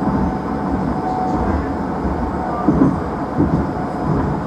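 Škoda 30T ForCity Plus tram running along the track, heard from inside: a steady rolling rumble of wheels on rails, with a faint steady whine from the drive.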